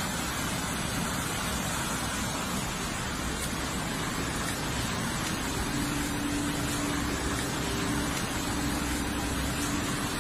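Muddy flash-flood water rushing past in a steady torrent, a continuous noisy wash with no let-up.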